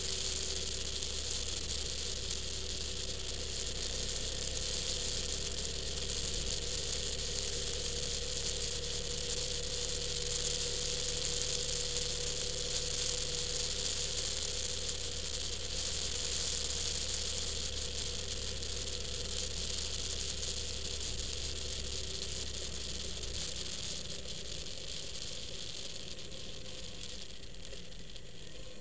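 Vehicle driving at a steady pace: a low engine hum under a constant hiss of road and wind noise, with some rattling, easing off slightly near the end.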